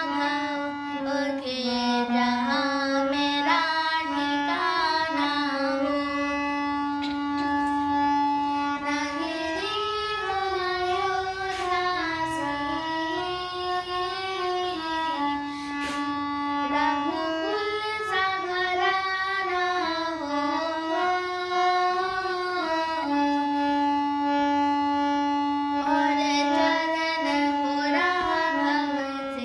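A high voice singing a slow, ornamented Shri Ram bhajan melody, with long held notes and sliding turns between them.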